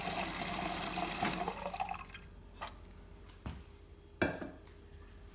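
Water flowing from a Bosch refrigerator's water dispenser into a container. The water stops about two seconds in. A few sharp clicks and knocks follow.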